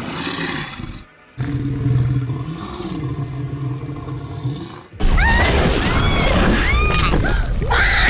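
A monster's deep, drawn-out growling roar, then about five seconds in a sudden loud crash of noise with short high shrieks over it.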